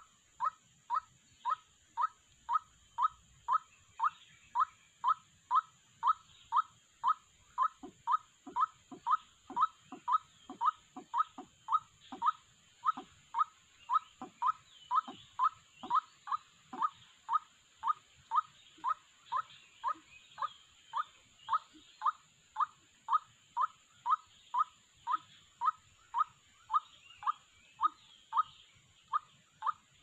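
White-breasted waterhen calling: a single short 'kwak' note repeated very regularly, about three every two seconds, with a second, lower series of notes joining from about a quarter of the way in to past the middle.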